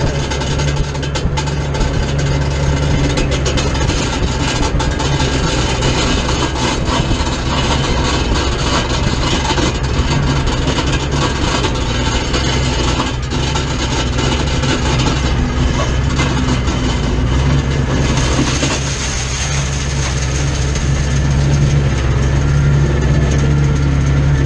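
Race car engine running at a low, steady idle, heard from inside the open-cockpit cab as the car rolls slowly.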